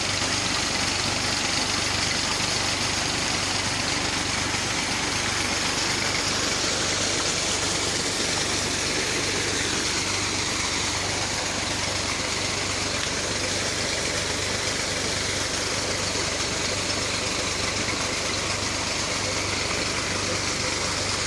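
Massey Ferguson 135 tractor engine running steadily under load, driving a tube-well pump through its PTO shaft and belt, with a steady rushing hiss of pumped water pouring out.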